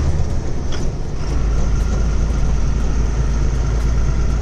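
Truck's diesel engine running, heard from inside the cab over road noise. Its low drone drops to a lower note about a second in.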